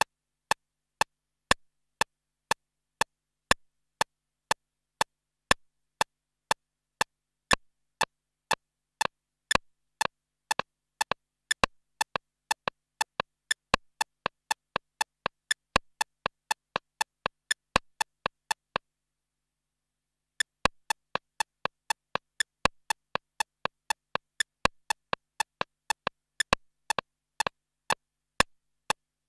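Short, sharp percussion clicks, about two a second, from a Korg Electribe ESX-1 drum machine (MIDI master, left speaker) and an Akai MPC500 (MIDI slave, right speaker) running together on MIDI clock. From about nine seconds in, each beat splits into two close hits as the slave's clock is shifted against the master. The pattern stops for about a second and a half after two-thirds of the way, then resumes.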